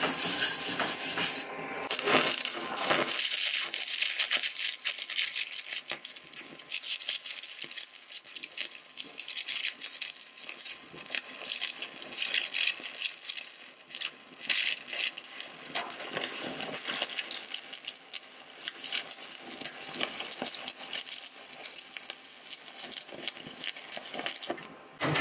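A stainless-steel wire brush scrubs the aluminum for the first couple of seconds. Then an arc strikes, and an Eagle 414 aluminum stick electrode burns with an irregular crackling, spitting sputter that drops out briefly a few times as the arc is run along a preheated aluminum tube.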